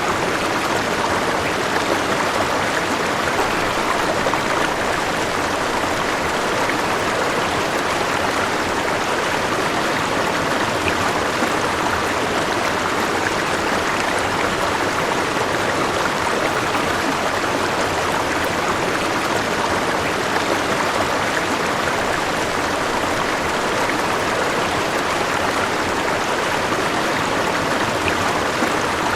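River water flowing and rushing over stones in a steady, even stream.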